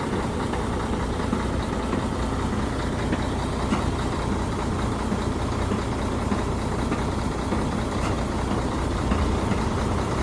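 Truck engine idling steadily with an even, low hum.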